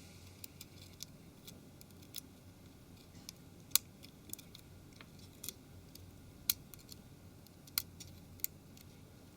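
Scattered small, sharp clicks and ticks at irregular intervals over a faint hiss, a few louder than the rest: small tools and tiny parts being handled while the cables inside a Nokia 701 phone are being refitted.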